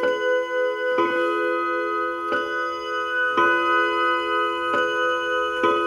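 A 1960s Junghans wall clock's gong striking the hour: six strikes about a second and a quarter apart, each ringing on with several tones into the next.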